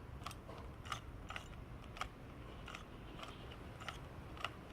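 Rubik's Cube being turned by hand: faint, sharp plastic clicks of its layers, about eight or nine at an uneven pace, as a sequence of turns swaps two pieces of the last layer.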